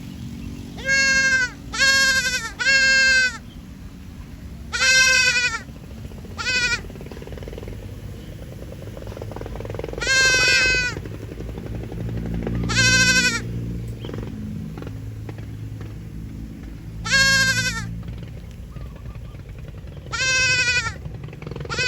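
A young goat or sheep bleating high-pitched, about ten short bleats, several in quick succession near the start and then spaced a few seconds apart, over a steady low rumble.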